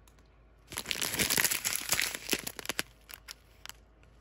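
Small clear plastic bag of square resin diamond-painting drills being handled and turned over, its thin plastic crinkling in a dense burst from about a second in for about two seconds, followed by a few light clicks.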